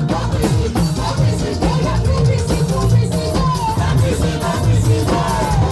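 Live band playing upbeat dance music, with a drum kit beating steadily, a strong bass line and singing.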